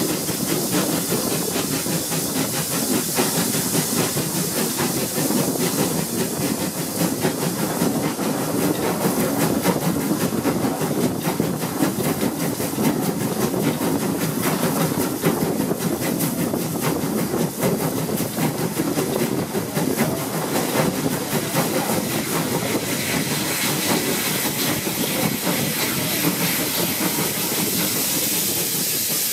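A steam locomotive hauling its train, heard close from the leading carriage: fast exhaust beats and wheels on rail under a constant rush of hiss. Over the last few seconds the beats give way to a steadier hiss.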